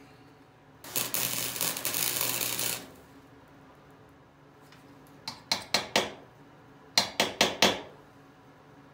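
Flux-core arc welding crackles for about two seconds, laying a short weld on a small steel washer and hex key. It is followed by two quick runs of about four sharp metal taps each.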